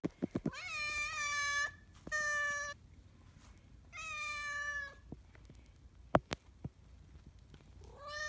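Tabby-and-white domestic cat meowing four times, each meow fairly steady in pitch, with a few sharp clicks between the calls.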